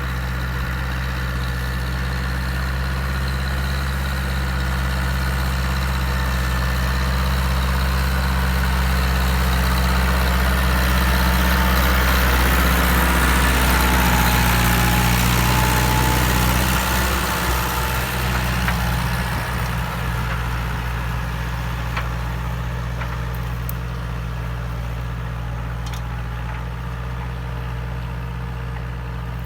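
Massey Ferguson 274S tractor's diesel engine running steadily under load while pulling a plough. It grows louder toward the middle, its note shifts a little, and then it fades as the tractor moves away.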